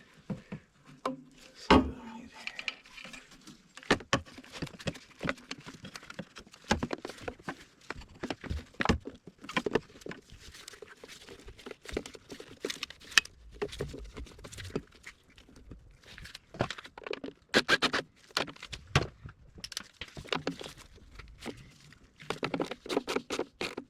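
Irregular clicks, knocks and rattles of hands working on an engine's intake: plastic connectors, hoses and parts being handled and fitted into place.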